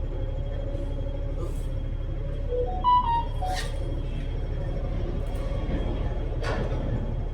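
Steady low rumble of a moving double-decker bus heard from inside the cabin. Just under three seconds in, a short electronic chime of a few pitched notes sounds, and brief rattling clicks follow.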